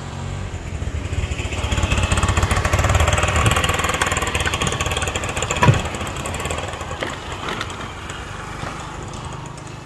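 A motor vehicle's engine passing close by: it grows louder over the first few seconds, then slowly fades away. A single sharp knock sounds about halfway through.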